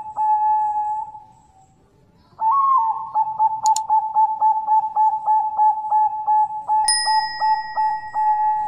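Subscribe-reminder intro sound effects: a steady electronic tone pulsing evenly several times a second, broken by a brief silence, with a mouse-click sound about a third of the way in and a bell ding near the end.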